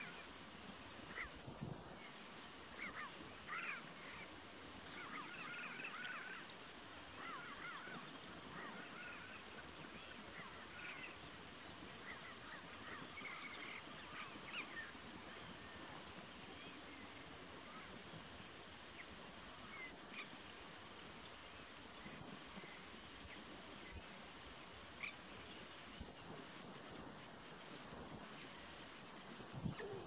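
Open-country ambience: a steady, high-pitched insect chorus pulsing regularly, with scattered distant bird chirps, mostly in the first half.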